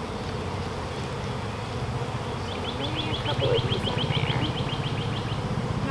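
Steady buzzing hum of honeybees flying around and over an open hive newly stocked from a package. Partway through, a bird trills in the background with a quick run of short, repeated high notes.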